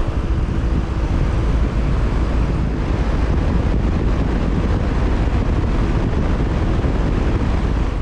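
Lennox Merit ML17XC1 condensing unit running, with the microphone in the discharge air of its top condenser fan: a loud, steady rush of air buffeting the microphone.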